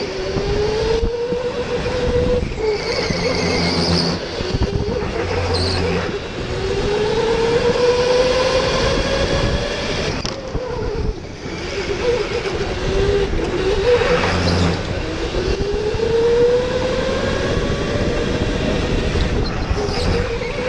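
Electric go-kart motor whining, its pitch climbing several times as the kart speeds up and falling back between, over steady rushing noise from the tyres and wind.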